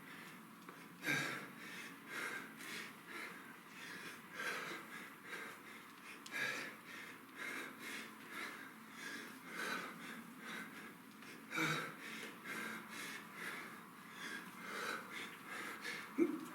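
Heavy, rhythmic breathing of a person exercising hard: quick breaths one after another, with sharper, louder ones about a second in and again near twelve seconds.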